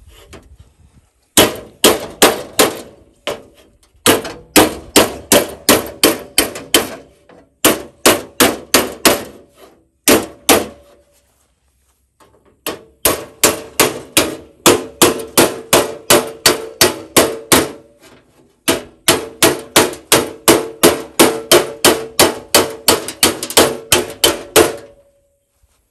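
Hammer beating on bent sheet steel, straightening it with hammer and dolly: runs of quick, even blows, about three a second, broken by short pauses, the metal ringing under each blow.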